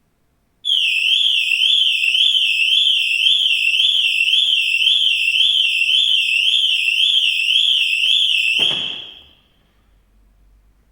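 Volkswagen Golf Mk5 alarm siren sounding loudly, a fast up-and-down warble of about two sweeps a second, which stops abruptly after about eight seconds. It is the louder of the car's two siren tones, selected by recoding the alarm module.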